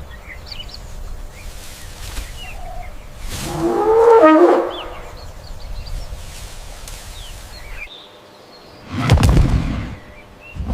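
Outdoor animal recording: one loud pitched animal call lasting about a second, about four seconds in, over birds chirping in the background. A short rough burst of noise comes near the end.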